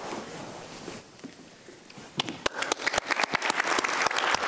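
Audience applauding. The clapping starts about two seconds in, after a faint, quiet stretch, and quickly becomes dense and steady.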